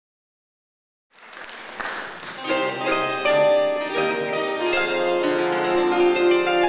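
Bandura played solo, its plucked strings ringing out in chords and a running melody as the introduction to a folk song. The strings come in about two and a half seconds in, after a second of silence and a short rush of noise.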